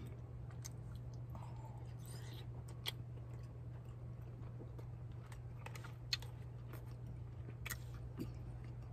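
A man chewing a mouthful of roast beef and rice, with a few short soft clicks and smacks, over a steady low hum.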